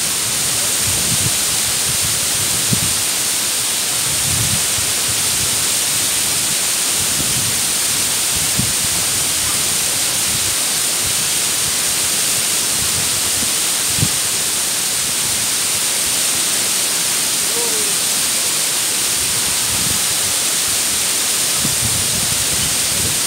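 Mumlava waterfall pouring steadily into its pool, a continuous rush of falling water. A few brief low thumps stand out over it.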